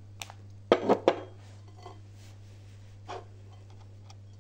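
A glass tumbler set down on a table: a cluster of sharp clinks and knocks about a second in, then a single softer knock about three seconds in.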